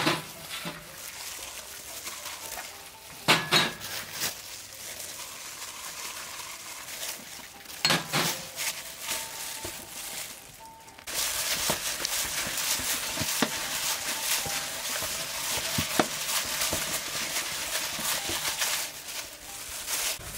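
A few sharp clinks and taps against a stainless steel bowl as seasonings are added. From about eleven seconds in, a gloved hand mixes a wet chili and spice paste in the bowl, making a steady rustling, crackly mixing noise.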